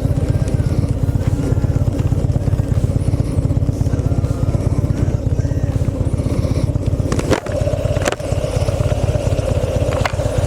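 Harley-Davidson Dyna's V-twin engine running steadily under way, heard from the rider's camera, with two brief breaks in the sound about seven and eight seconds in.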